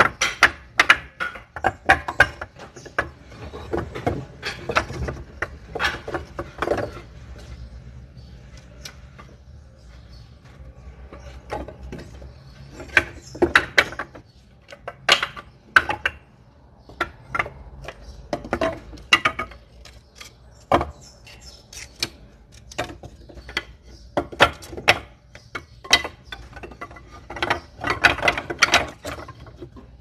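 Pieces of firewood knocking against one another: irregular sharp wooden clicks and knocks coming in clusters, with a quieter stretch about a third of the way through.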